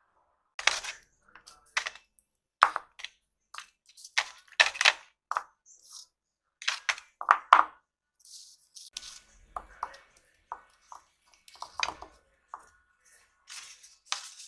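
Oil pastels and their packaging being handled and sorted by hand: a run of irregular light clicks, taps and knocks as sticks and boxes are picked up and set down.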